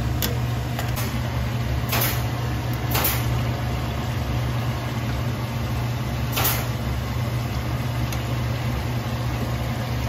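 Shallots deep-frying in oil in a stainless steel pan, a steady sizzle and bubbling over a constant low hum. A metal spatula clinks against the pan a few times, most sharply about two and three seconds in and again past halfway.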